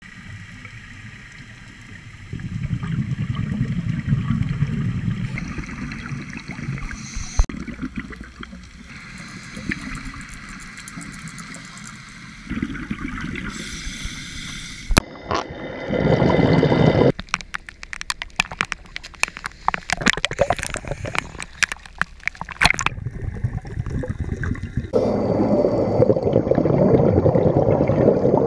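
Underwater audio of scuba divers breathing through their regulators, exhaled bubbles gurgling and rushing past. The sound changes abruptly several times, and a stretch of rapid sharp clicks and crackles runs through the middle.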